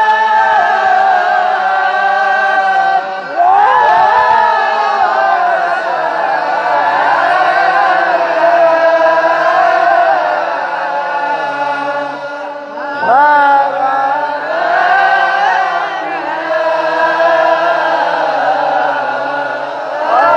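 A male voice chanting Islamic sholawat, Arabic praise of the Prophet, in long, ornamented held notes that slide between pitches, with short breaths between phrases.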